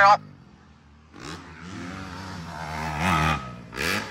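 Dirt bike engines revving hard at a jump: a loud rev cuts off right at the start, then from about a second in another bike's engine rises as it approaches, and it revs sharply again near the end as it takes off.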